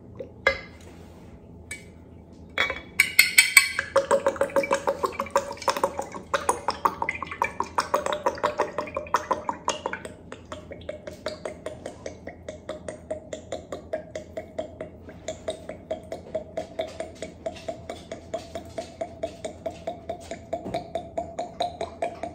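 Extra virgin olive oil glugging out of a bottle into a glass jar of basil leaves. A quick, even run of gulps, about four a second, starts a couple of seconds in, is loudest for the first several seconds, then goes on softer and steady.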